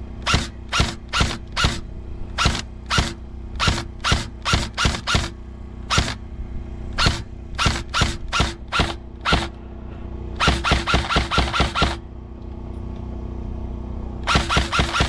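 Airsoft rifle firing: single shots at about two to three a second for the first nine seconds, then two quick strings of rapid shots, one about ten seconds in and one near the end.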